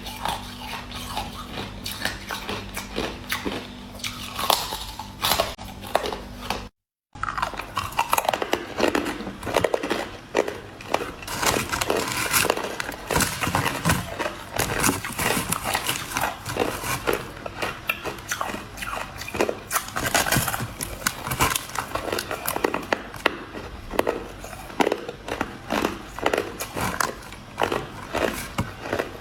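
Crushed ice being bitten and chewed: a dense, irregular run of loud crunches with no pause, broken only by a brief total dropout about seven seconds in.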